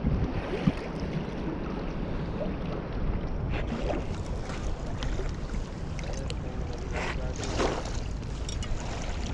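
Steady rush of a fast-flowing river mixed with wind buffeting the microphone. A few brief clicks and rustles come in the second half.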